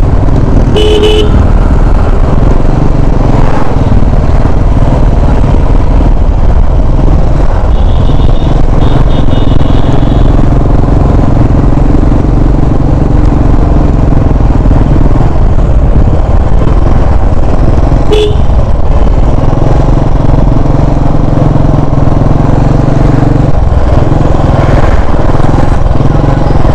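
Steady loud riding noise from a motorcycle on the move, a rumble of engine and rushing air. Short horn toots sound about a second in, a few more around eight to ten seconds in, and one around eighteen seconds in.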